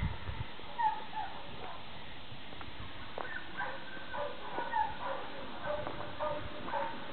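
A dog whining faintly in a string of short, high notes: two about a second in, then a run of them from about three seconds until near the end.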